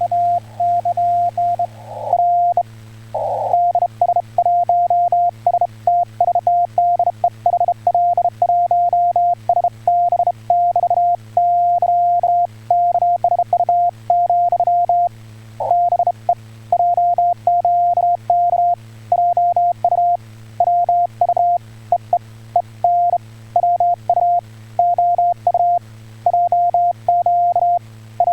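Morse code (CW) in the Korean Hangul telegraph code, heard as a single steady-pitched beep keyed on and off in dots and dashes from an amateur radio contact. A low steady hum runs underneath.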